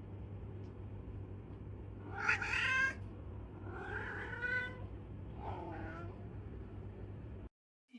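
A cat meowing three times, the first call the loudest, over a steady low hum.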